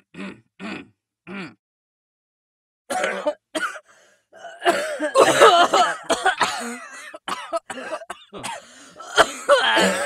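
Coughing and throat clearing. A few short separate coughs come first, then more than a second of silence. Then, from about three seconds in, a dense run of coughs from several people overlapping one another.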